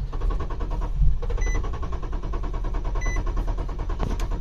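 Infiniti G37's 3.7-litre V6 being cranked by the starter, turning over rhythmically without catching: a no-start because the fuel tank has run dry behind a misreading fuel gauge. A short high chime repeats about every second and a half.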